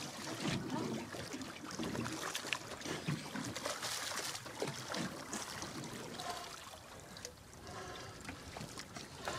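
Water splashing and sloshing around spearfishers swimming at the sea surface, with a louder splash about four seconds in.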